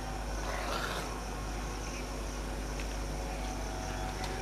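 Steady low rumble of an electric multiple-unit train approaching from a distance, under a steady high insect drone.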